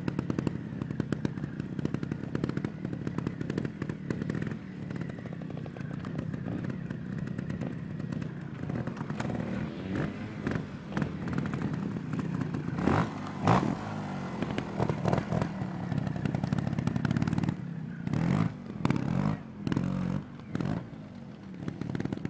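Trials motorcycle engine running at low revs while the bike is balanced and turned, with two sharp blips of throttle about halfway through. Near the end it comes in short bursts of throttle with dips in between.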